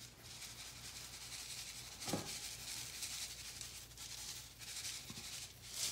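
Panko breadcrumbs being sprinkled over salmon fillets in a baking pan: faint, steady dry rustling, with one light knock about two seconds in.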